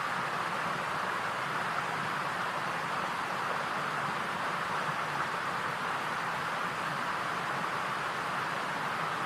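Steady, even hiss centred in the middle range, unchanging throughout, with no distinct events.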